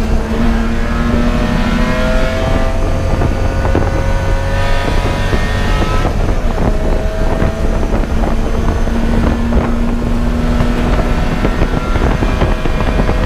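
Race car engine running hard on track, its pitch climbing slowly and changing as it moves through the rev range.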